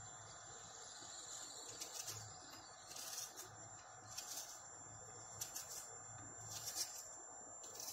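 Knife slicing through a raw onion held in the hand, crisp cuts about once a second starting about two seconds in, over a steady faint hiss.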